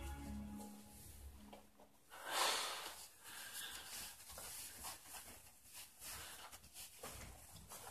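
Scattered rustling of a knit sweater being pulled on over the head, with a loud breathy rush about two and a half seconds in. Music tones fade out in the first two seconds.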